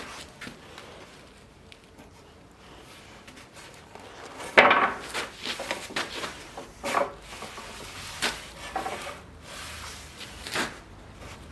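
Objects being handled: scattered knocks and clinks with a few scrapes. The loudest knock comes about four and a half seconds in.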